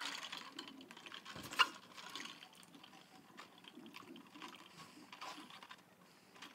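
Drink being sipped through a plastic straw from a foam cup, faint slurping with small clicks and one sharp click about one and a half seconds in.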